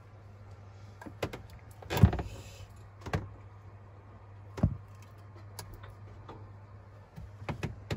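A softened rubber hose being forced and twisted onto a flanged metal pipe, with several sharp knocks and rubbing squeaks of rubber and metal; the loudest knock comes about two seconds in. The hose will not seat fully. A steady low hum runs underneath.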